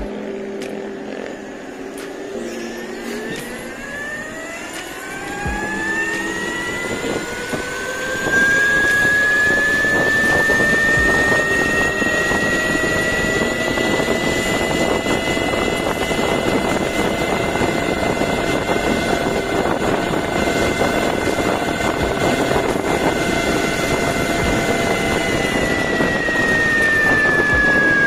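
Brushless electric hub/belt motor of a 72V DIY electric scooter whining under hard acceleration. The whine rises in pitch for the first ten seconds or so, holds steady at around 55–57 km/h, then falls slightly near the end as the rider eases off. Wind rushes over the microphone from about eight seconds in.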